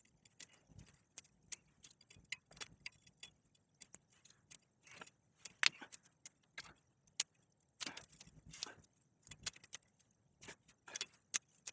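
Irregular metallic clicks and light knocks of hand tools on a bicycle frame as a stuck eccentric bottom bracket is worked loose, with a few louder clanks near the middle.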